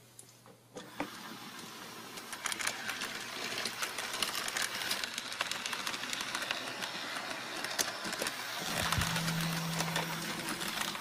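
HO-scale model trams running on track: small electric motors whirring and wheels clicking over the rails, louder as the trams pass. A steady low hum joins in near the end.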